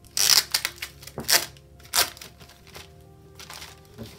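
Thin plastic sleeve around a planner cover crinkling and crackling as it is handled, in loud rustles about a third of a second in, at about a second and a quarter, and at two seconds, with smaller crackles between. Faint background music runs underneath.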